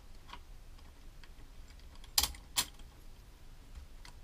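Small metal parts clicking and clinking against a starter solenoid cover as a new copper contact bolt is fitted by hand, with two sharp clicks about two seconds in.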